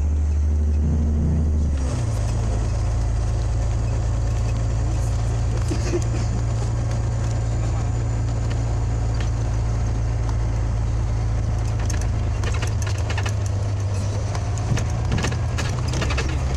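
Scania OmniLink CL94UB city bus engine running under way, heard from inside the passenger cabin as a steady low drone. The engine note changes about two seconds in, and short clicks and rattles come near the end.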